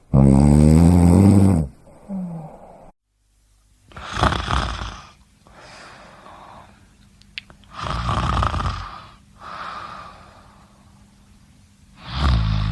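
Snoring: a loud, rattling, pitched snore lasting about a second and a half, then a short one. After a sudden cut, softer, breathier snores come every few seconds, and another loud one starts near the end.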